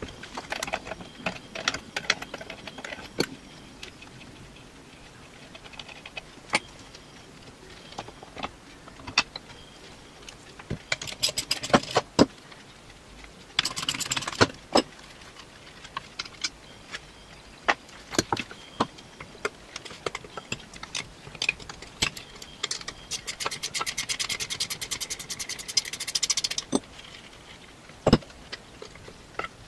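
Metal hand tools and steel brake parts knocking and clanking on a workbench as a classic Mini's rear hub and brake back plate are unbolted from the radius arm, with two stretches of rapid, even clicking, one about 14 seconds in and a longer one near the end.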